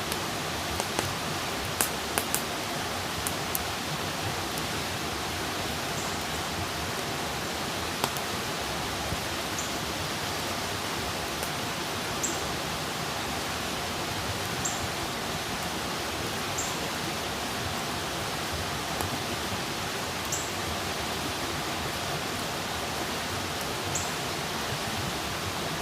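Wood campfire burning with a steady hiss and occasional sharp crackles and pops, several close together in the first few seconds. Faint short high chirps come every few seconds behind it.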